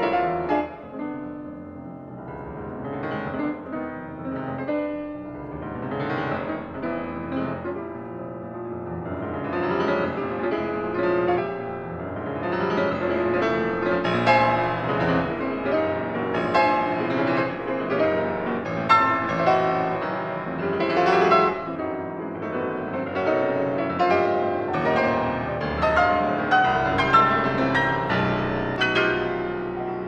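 Piano music, growing fuller and louder about ten seconds in.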